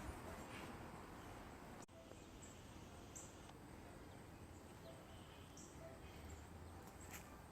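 Near silence: faint background hiss with a few faint, short high-pitched chirps scattered through it, and a brief dropout about two seconds in.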